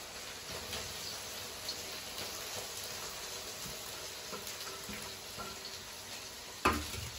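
Chopped onions and capsicum sizzling in hot oil in an iron kadhai on a gas flame, a steady hiss. A sharp knock near the end.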